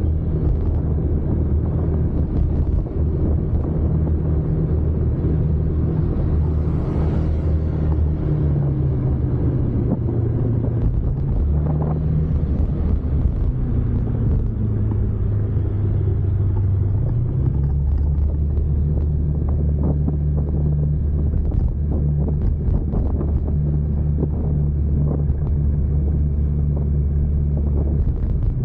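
Vehicle engine running steadily under way, its pitch stepping up and down several times, with road and wind noise.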